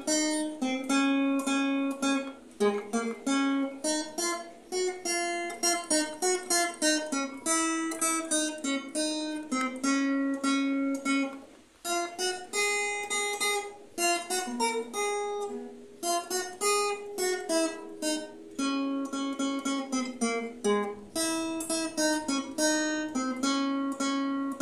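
Acoustic guitar played solo, a melody picked out one note at a time in a quick run of plucked notes, with a brief pause about halfway through.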